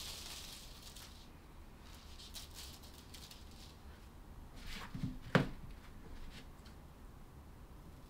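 Tulle netting being pulled off its roll and laid across a cloth-covered table, a faint rustling and handling noise. A single sharp knock about five seconds in.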